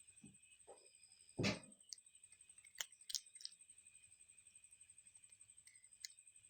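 A cat chewing fried fish: faint scattered clicks and crunches, with one louder short burst about a second and a half in.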